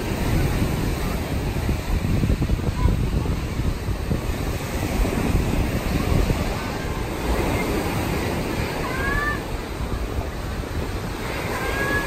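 Steady, fluctuating rushing of wind on the microphone mixed with surf on the beach. A couple of brief, faint high chirps come in the last few seconds.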